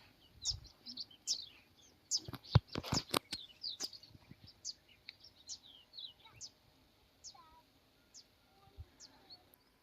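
Small birds chirping, a string of short, high, falling chirps repeated every second or so. A quick cluster of sharp clicks or knocks a couple of seconds in is the loudest sound.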